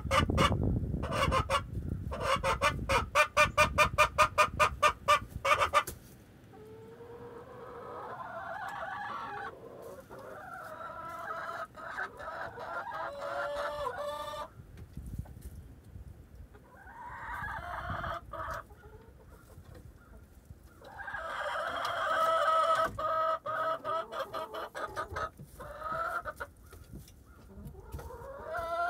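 Chickens in a coop calling: a fast, rhythmic run of loud clucks for the first several seconds, then long, drawn-out wavering calls. A louder burst of calling and clucking follows near the end.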